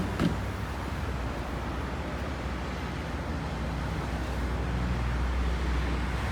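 Steady rumble of road traffic, growing slowly louder toward the end.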